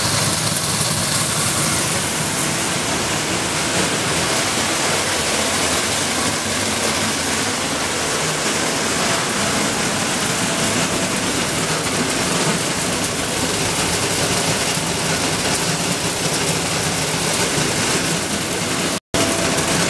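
Plastic-flake colour sorting machine running: a loud, steady rushing hiss of flakes pouring through the feeder and chutes, with machine noise beneath. The sound cuts out for an instant near the end.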